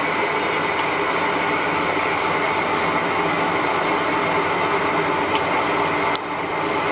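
Small CNC lathe turning a metal workpiece under flood coolant: the spindle running and the tool cutting make a steady machining noise with a faint whine in it. The noise dips briefly near the end.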